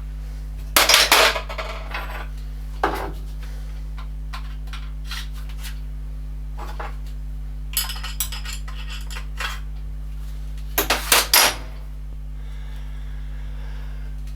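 Metal hand tools clinking and clattering as they are handled and set down on a workbench, in several short bursts with the loudest near the end, over a steady low electrical hum.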